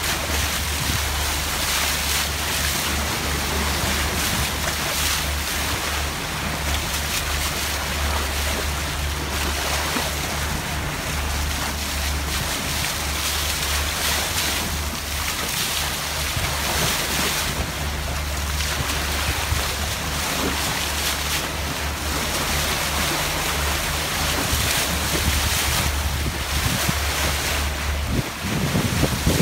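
Water rushing and splashing past the bow of a Lagoon 450 catamaran under way, with steady wind buffeting the microphone.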